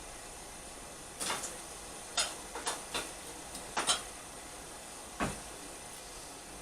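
About ten sharp, irregular metal knocks and clanks in a blacksmith's shop, bunched between about one and four seconds in with one more near five seconds, over the steady hiss of a running forge.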